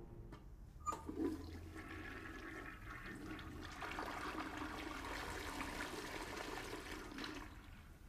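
A click, then several seconds of rushing water that fades out near the end.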